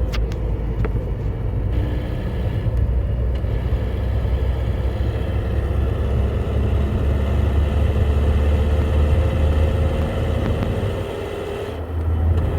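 Ford Mondeo Mk3 1.8 petrol car under way, with a deep rumble and a thin steady whine that sags slightly and then climbs again. The owner hears this as a strange noise when accelerating. There is a sharp click at the very start, and the sound eases briefly about eleven seconds in before it grows louder again.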